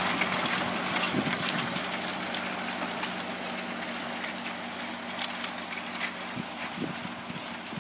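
John Deere tractor engine running steadily, slowly growing fainter.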